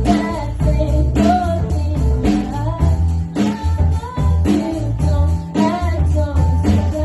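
A woman singing a slow pop song over a band with electric guitar, bass and drum kit, keeping a steady beat.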